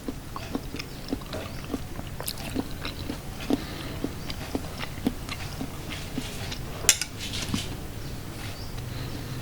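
Someone eating soup close to the microphone: a string of wet mouth clicks, smacks and short slurps. One sharper click comes about seven seconds in, followed by a brief slurp.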